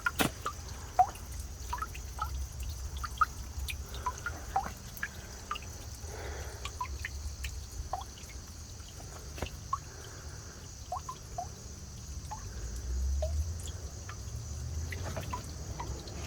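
Water dripping into a small pool in a nearly dry creek bed: irregular single plinks at varying pitches, about one a second.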